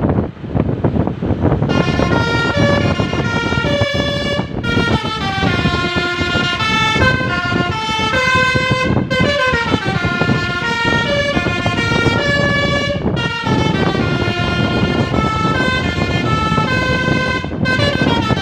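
Bus basuri telolet horn playing a melody of stepped, held notes, starting about two seconds in, with short breaks between phrases, over steady road and wind noise.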